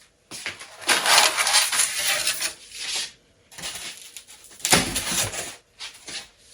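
Packaging of a boxed bar fridge being handled: crinkling and scraping of cardboard and plastic in two long stretches, the second starting with a sharper knock.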